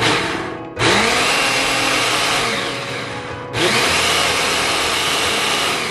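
Ninja Professional 1000-watt countertop blender run on pulse. The motor spins up with a rising whine under loud whirring blade noise. It cuts out briefly under a second in and again about three and a half seconds in, then starts again each time.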